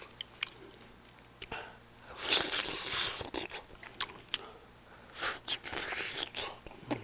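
A person chewing and biting food close to the microphone: scattered wet mouth clicks, with two longer stretches of noisy chewing about two and five seconds in.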